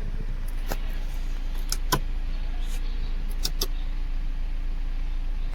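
Kia Sportage engine idling with a steady low hum, with a few short, sharp clicks over it, mostly in close pairs.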